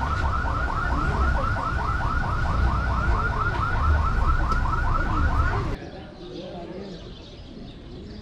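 Car alarm warbling, a fast run of rising chirps at about five a second, over the low rumble of idling vehicles. It stops abruptly about six seconds in, leaving a much quieter background.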